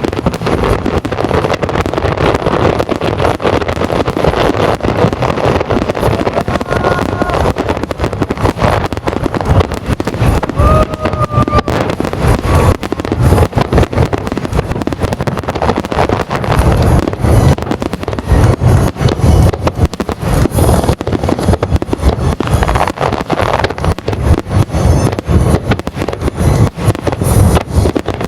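Aerial fireworks going off in a rapid, continuous starmine barrage, the booms and crackles following one another without pause.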